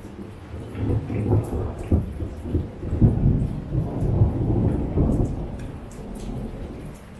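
Thunder rumbling through heavy rain: a long low roll that swells about a second in and dies away toward the end, with rain hiss and the tick of drops on top.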